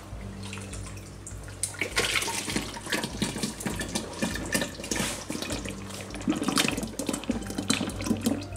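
Liquid Ultracal gypsum slurry pouring in a thick stream from a bucket into a silicone mould, with a steady gush and splatter that picks up about two seconds in.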